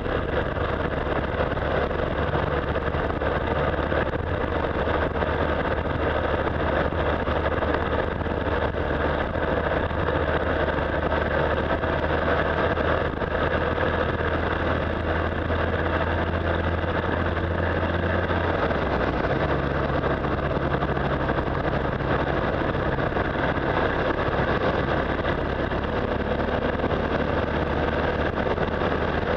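Motorcycle engine running at a steady road speed, mixed with wind and road noise. The engine note changes once, about two-thirds of the way through.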